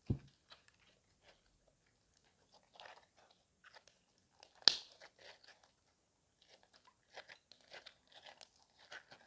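Glitter slime with foam beads being squeezed and kneaded by hand: crackly, crunchy squishing with small pops. A low thump right at the start, and a sharp snap about halfway through is the loudest sound.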